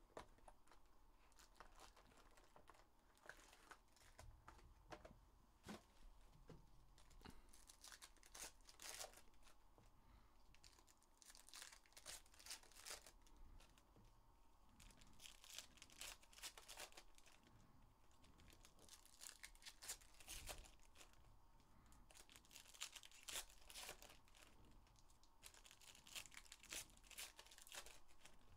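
Faint, irregular tearing and crinkling as a Panini Rookies & Stars football hobby box is opened and its card pack wrappers are ripped open, with the cards shuffled by hand.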